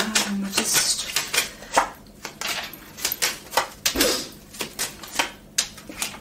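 A deck of tarot cards being shuffled by hand, a quick, irregular run of card flicks and clicks, then cards laid down on the table.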